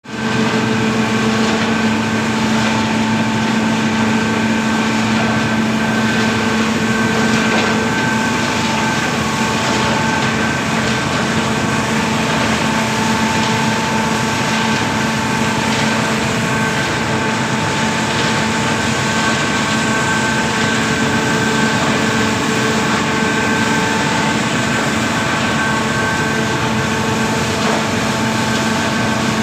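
Coal belt conveyor running steadily: a loud, continuous mechanical rumble with several steady humming tones over it.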